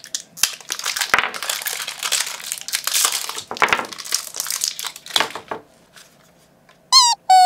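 Crinkling and crackling of clear plastic battery packaging being torn open and handled for about five seconds, to get at a set of AA batteries. Near the end, a quick run of short, high-pitched chirping squeaks begins.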